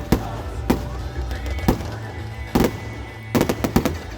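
Fireworks bursting: a series of sharp bangs, about seven in four seconds, at uneven intervals, the last few close together near the end.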